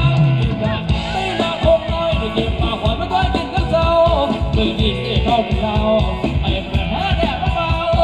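Live band playing Thai ramwong dance music: a steady drum-kit beat under a sung melody.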